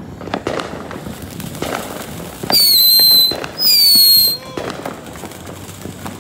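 Fireworks: two loud, high whistles, each under a second long and falling slightly in pitch, about two and a half seconds in. A ground fountain firework is spraying sparks, and scattered firecracker pops sound throughout.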